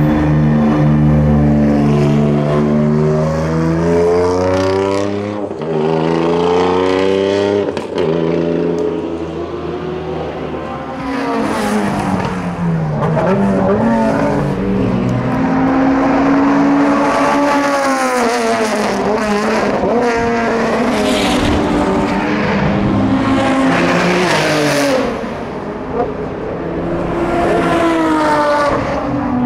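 Time-attack race car's engine at full throttle, its pitch climbing steadily through the gears, then falling and climbing again several times as it brakes and accelerates between corners.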